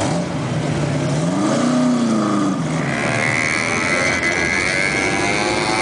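De Tomaso Pantera race car's Ford V8 revved once at low speed: the pitch rises for about two seconds, then falls away. From about three seconds in, a steady, higher-pitched engine note carries on.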